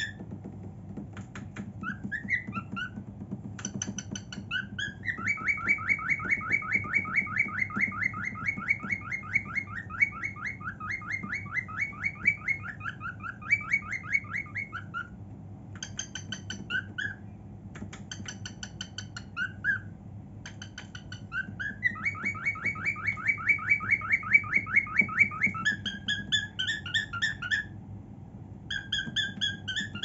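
Cockatiel singing: whistled phrases broken by short pauses, with two long runs of fast repeated warbling notes, one from about five to fifteen seconds in and another from about twenty-two to twenty-five seconds in.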